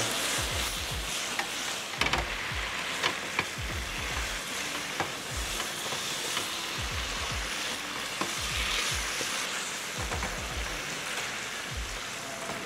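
Marinated pork neck steaks sizzling in oil and sauce in a nonstick frying pan. Now and then the metal tongs click against the pan as the meat is turned.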